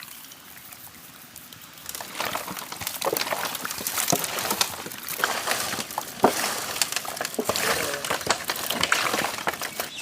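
Raw quail being mixed by hand with curd, turmeric and rock salt: wet sloshing and rubbing in irregular bursts that begin about two seconds in.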